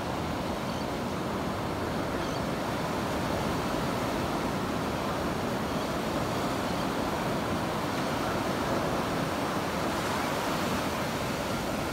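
Steady rush of ocean surf breaking on a beach, mixed with wind.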